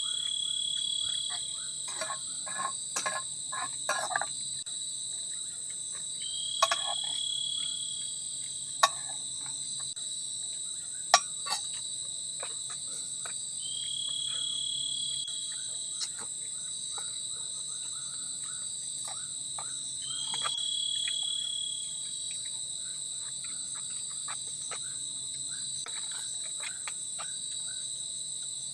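Steady chorus of forest insects such as crickets, shrilling at a constant high pitch, with a shorter call that repeats about every six or seven seconds and lasts a second or two. A few sharp clicks and knocks come through in the first half.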